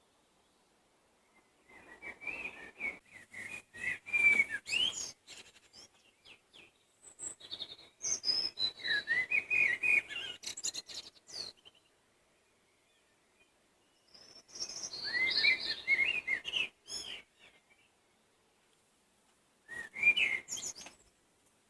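A songbird sings in warbling, whistled phrases of a few seconds each, four times, with short quiet pauses between them. The phrases sit mostly in a mid-high register, with a few higher notes.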